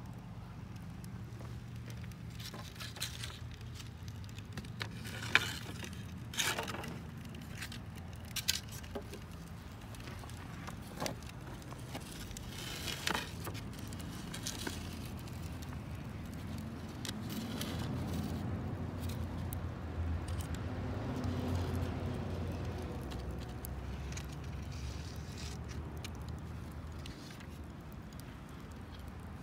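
Wood fire crackling in the firebox of a small wood-fired kiln, with a handful of sharp pops in the first half over a steady low rumble that swells for several seconds in the second half.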